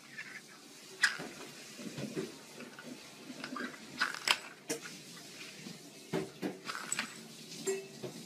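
A kitten batting and pouncing on small plastic lids on a wooden floor: scattered clicks and knocks of plastic on wood, with its paws scrabbling and thumping. The sharpest knock comes about a second in.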